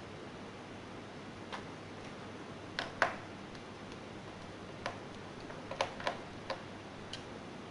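Scattered sharp clicks and light knocks, about nine at uneven intervals, the loudest about three seconds in, over a steady hiss: laptop parts and small tools being handled during disassembly.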